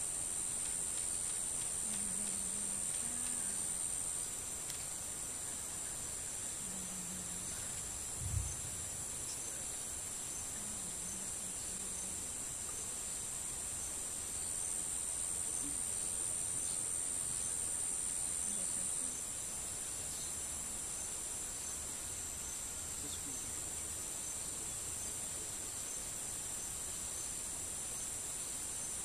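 A steady, high-pitched insect chorus that swells and fades in steps, with one brief low thump about eight seconds in.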